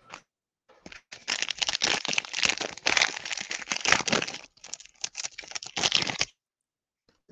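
Foil wrapper of a 2023 Panini Prizm football card pack being torn open and crumpled by hand: dense crinkling and crackling that starts about a second in and stops a little after six seconds.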